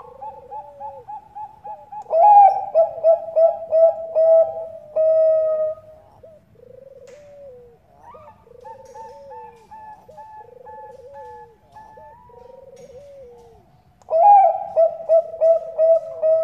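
Zebra dove (perkutut bangkok) cooing in rapid staccato trills. A loud burst of cooing comes about two seconds in and again near the end, with softer coos in between.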